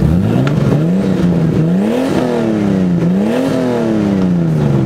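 Nissan Skyline R34 GT-R's twin-turbo straight-six revved from idle through an aftermarket exhaust. The pitch climbs, dips, then rises to two peaks about two and three and a half seconds in. It falls slowly back to a steady idle near the end.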